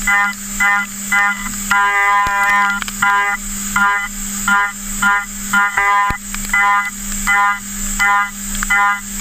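Okuma MB-4000H horizontal machining center milling steel dry, without coolant: the cutter screeches in a regular pulse about every 0.7 seconds as it bites into the work on each pass, over the steady hum of the machine. Around two seconds in the screech runs on unbroken for about half a second.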